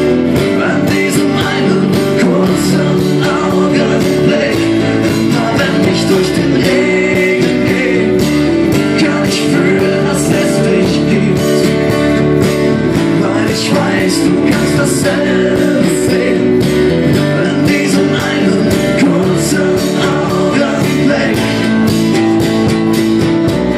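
Live acoustic band playing an instrumental passage: strummed acoustic guitars and keyboard over steady, regular percussion hits.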